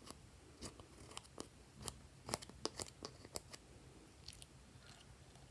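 Small metal spatula scraping pressed eyeshadow out of a palette pan and working it into slime: a string of faint, crunchy clicks, thickest about two to three and a half seconds in.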